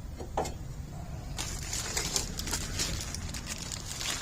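Light rustling and scattered small clicks of brake parts being handled, starting about a second and a half in, over a low steady hum.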